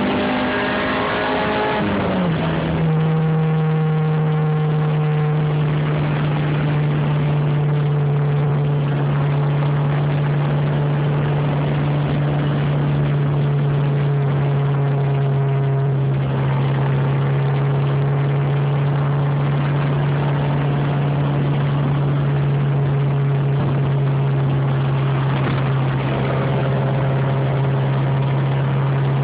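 Honda B16 1.6-litre four-cylinder engine running at fairly high, steady revs. The pitch drops about two seconds in and then holds level. This engine has an exhaust leak at the front.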